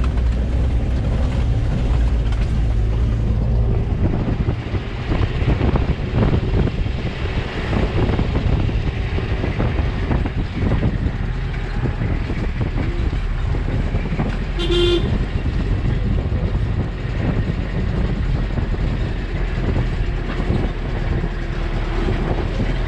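Engine and road noise of an SUV heard from inside its cabin on a rough concrete road: a steady low rumble with many knocks and rattles from bumps, and one brief horn beep about two-thirds of the way through.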